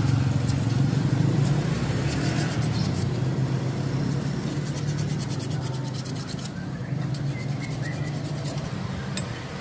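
Sandpaper scraping in rapid back-and-forth strokes over the rusty slide pin of a Honda PCX 150 rear disc-brake caliper, rubbing off corrosion so the caliper can slide freely instead of sticking. The strokes thin out after about six seconds. A steady low hum runs underneath.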